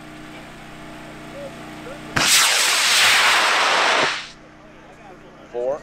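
I-236 high-power rocket motor burning at liftoff: a sudden loud rushing noise that starts about two seconds in, holds for about two seconds, then fades out.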